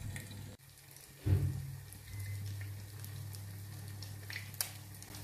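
Fish cutlets sizzling in hot oil in a wok, with faint scattered crackles over a steady low hum. A dull low thump, the loudest sound, comes about a second in.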